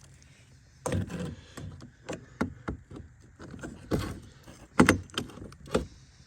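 Outrigger clamps being slid into a kayak's side rail: a run of irregular knocks, clunks and scrapes, the loudest clunk about five seconds in.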